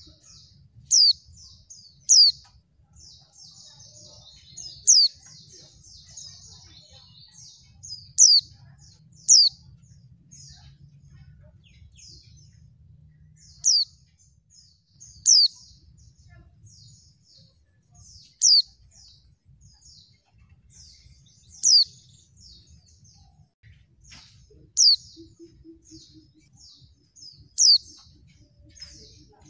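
Female pleci (white-eye, Zosterops) calling: sharp, high chirps that slide downward, repeated every one to three seconds, with soft twittering between them. This is a lure call used to set male pleci singing.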